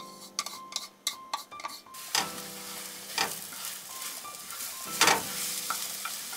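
Beaten egg frying in hot oil in a frying pan, sizzling steadily from about two seconds in as it is scrambled, with a few louder scrapes of the utensil against the pan. Light clicks and taps of the utensils come before the sizzle.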